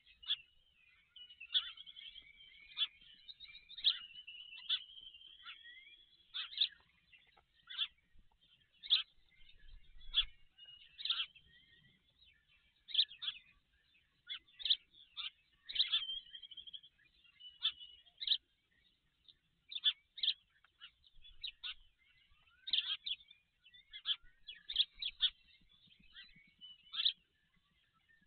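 Bird calls: a long series of short, sharp, high-pitched chirps at irregular intervals, about one or two a second, with a few longer drawn-out whistles in the first several seconds.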